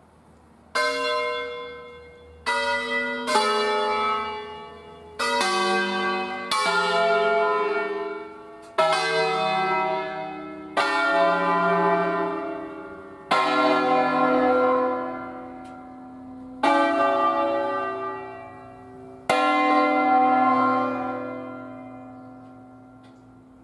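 Church bells from a ring of eight 1925 Cavadini bells, rung by hand: about eleven single strokes on different bells, each ringing out and fading. The strokes come quickly at first and then more slowly, a few seconds apart.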